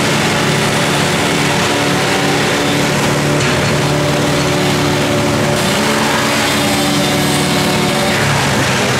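An engine running steadily, its pitch shifting a little up and down.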